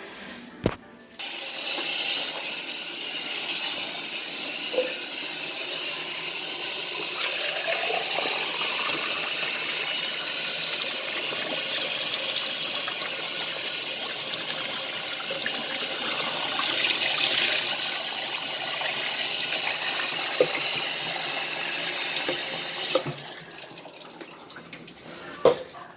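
Water tap running into a sink, a steady hiss that starts about a second in and is shut off suddenly about three seconds before the end. There is a click at the start and a short knock near the end.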